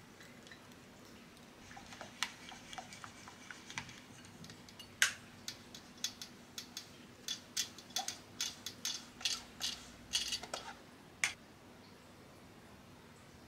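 Silicone spatula working crepe batter through a stainless steel mesh sieve set in a glass bowl: a run of irregular scrapes and sharp clicks, the loudest about five seconds in, ending about two seconds before the end.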